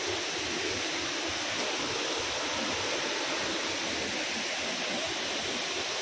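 Water rushing steadily over a shallow rocky cascade, a constant even roar with no breaks.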